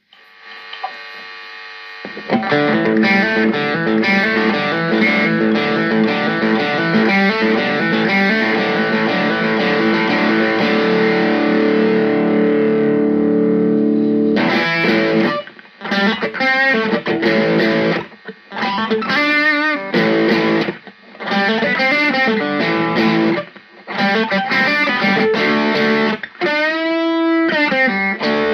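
Electric guitar with crunch distortion through a Blackstar amPlug 2 Fly headphone amp, played out of a Bluetooth speaker. A few quiet notes give way about two seconds in to loud, ringing strummed chords. From about halfway the playing turns to short chord stabs with stops between them, with a bent note near the end.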